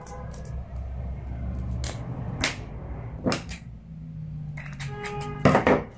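Scissors snipping through a floral-tape-wrapped wire flower stem: a few sharp snips and snaps about two seconds in, then a quick cluster of them near the end.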